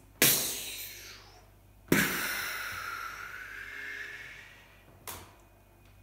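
Breathy exhales blown close into a studio microphone: a short whoosh with a falling pitch at the start, a longer one of about two and a half seconds from about two seconds in, and a brief puff near the end.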